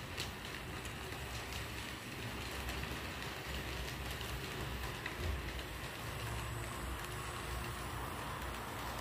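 Model passenger train pulled by a Fepasa V8 locomotive model running on the layout's track: a steady rumbling whirr of the motor and wheels on the rails, growing slightly louder as the train approaches.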